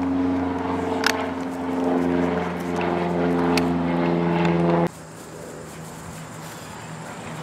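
A motor engine running steadily close by, a hum of several held pitches. It cuts off suddenly about five seconds in, leaving fainter, hissy background noise with a low hum.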